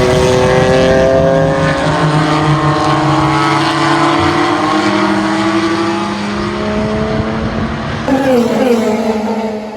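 Race car engine at full throttle, its note climbing steadily for several seconds. About eight seconds in a car passes close, louder, its pitch falling away as it goes by.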